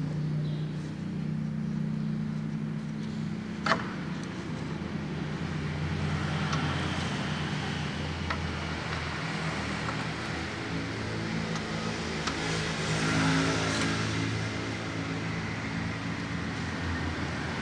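A motor vehicle engine running steadily in the background, a low hum that holds throughout, with one sharp click about four seconds in.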